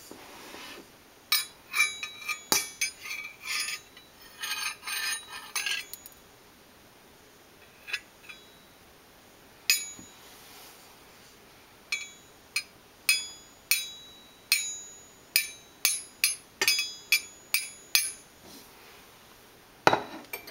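Metallic taps and clinks from a KitchenAid stand mixer's metal flat beater and stainless steel bowl handled by hand. A rapid flurry of clicks comes first. After a few lone taps, single taps follow, each with a short metallic ring, about two a second.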